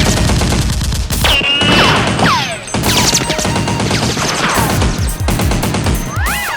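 Rapid automatic gunfire effects with repeated whining ricochets that fall in pitch, over background music.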